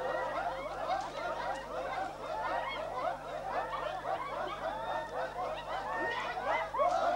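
Many Korowai men chanting and calling out together in short, overlapping rising-and-falling yelps: the massed war chant of a ceremonial war dance.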